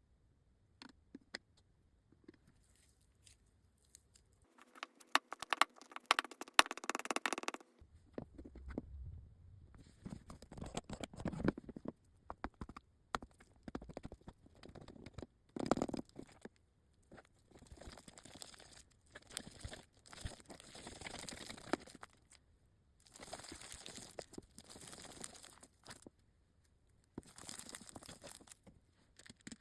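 Slime being mixed, stretched and squished by hand, with sticky crackling and tearing sounds. It comes in a run of short takes of a few seconds each, with brief pauses between them.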